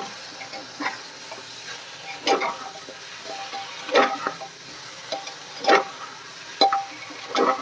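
Goat head and trotter pieces being stirred and sautéed in hot oil in an aluminium pressure cooker: a spatula scrapes and turns the pieces about six times, a second or two apart, over a steady low sizzle.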